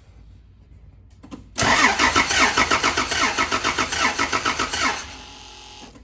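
Car engine cranked on its starter motor with the ignition coil disconnected, turning over in a fast, even rhythmic chug without firing, for a compression test on a misfiring cylinder. Cranking starts abruptly about a second and a half in and stops about five seconds in, followed by a brief fainter whir. The gauge reads only about 40 psi on that cylinder, far below normal: no compression.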